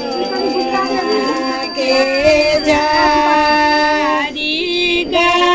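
Female voices singing a Hindu devotional aarti hymn in long, held notes.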